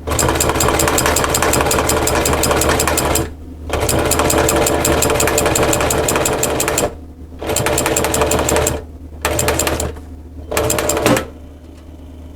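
Sewing machine stitching a seat cover in runs of rapid needle strokes, stopping and starting: two runs of about three seconds, then a few shorter bursts, going quiet near the end over a steady low hum.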